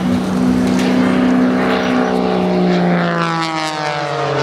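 Extra 260 aerobatic monoplane's propeller engine droning during its display, with a steady tone whose pitch falls smoothly over the second half.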